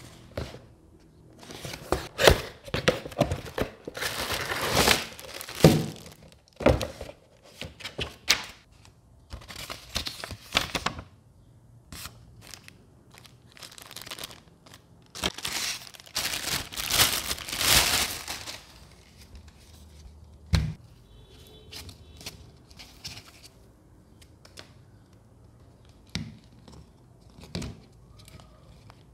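Plastic packaging crinkling and tearing as parts are unwrapped by hand, with loud bursts of rustling through the first two-thirds. After that, quieter handling clicks and knocks as plastic parts are fitted together.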